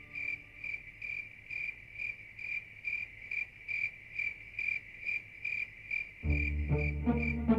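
A cricket chirping at night, an even run of short chirps at about two and a half a second. About six seconds in, background music with low held notes comes in under it.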